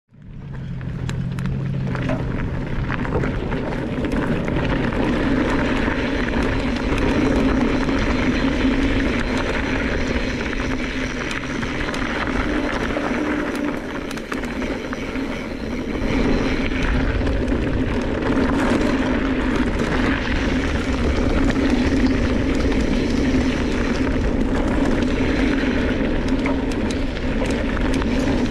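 Mountain bike rolling downhill on a gravel and dirt trail: rushing wind on the handlebar camera and tyre noise on loose dirt, with a steady humming buzz under it and scattered small rattles and ticks.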